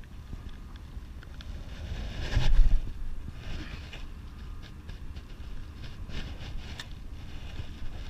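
Wind rumbling on the microphone, steady throughout, with a louder rush about two and a half seconds in and a few light clicks near the end.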